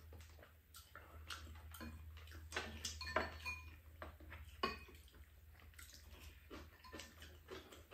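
Faint, scattered clinks and scrapes of a metal spoon and chopsticks against ceramic bowls and a pan while eating, over a low steady hum.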